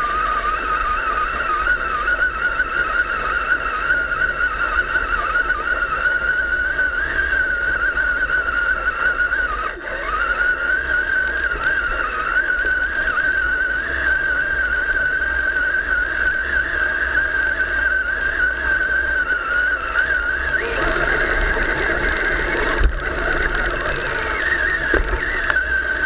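Electric drive of a radio-controlled monster truck whining as it crawls, a steady high motor-and-gear whine wavering up and down with the throttle. For a few seconds near the end, rougher rattling noise joins it.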